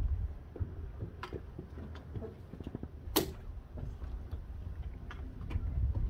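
A 1966 Ford Mustang's convertible top frame is raised and lowered by hand. Scattered clicks and knocks come from the bows and stretched vinyl, with one sharp click about three seconds in, over a low rumble.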